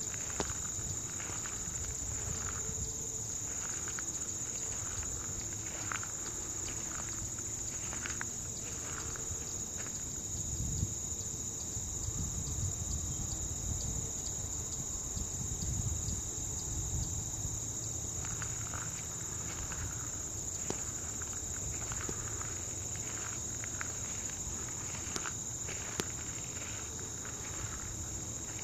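Steady high-pitched chorus of crickets and other late-summer insects. Over it, soft regular crunching of footsteps on a gravel path, which stops for several seconds midway and then resumes.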